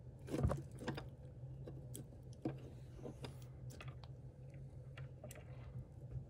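White's tree frog striking at a hornworm: a wet smack about half a second in, then scattered small wet clicks as the frog works the worm into its mouth, over a low steady hum.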